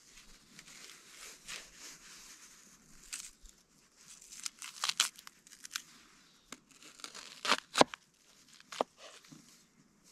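Kitchen knife cutting raw potatoes and onions on a wooden board: crunchy slicing strokes with the blade knocking the board, the sharpest pair about seven and a half seconds in.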